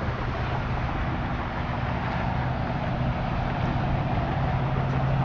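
A vehicle engine running steadily with a low hum, growing slightly louder toward the end.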